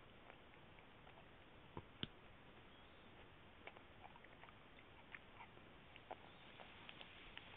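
Dachshund chewing and gnawing a piece of cartilage: faint, irregular clicks and crunches of teeth on the chew, the loudest about two seconds in.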